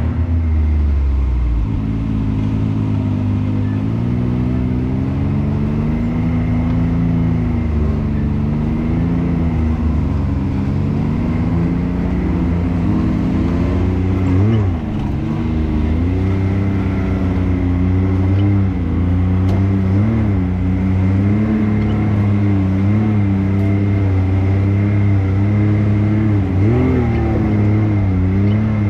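Can-Am X3's turbocharged three-cylinder engine running at low revs on a rough trail, its pitch rising and falling as the throttle is worked, with a quick rev blip about halfway through and another near the end.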